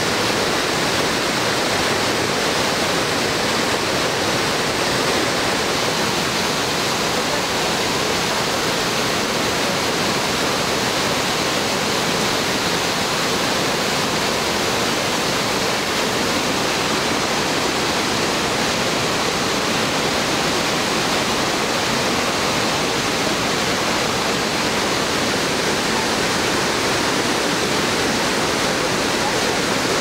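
Whitewater of a cascading woodland stream rushing over boulders: a loud, steady, unbroken rush of falling and tumbling water.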